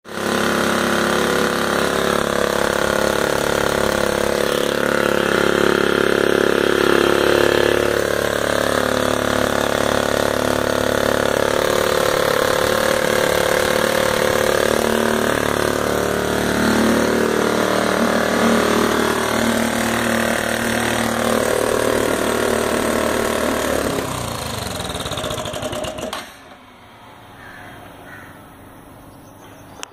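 Turbocharged single-cylinder two-stroke petrol engine running steadily and loudly on a test stand. Its sound eases slightly and then cuts off abruptly about 26 seconds in as the engine stops.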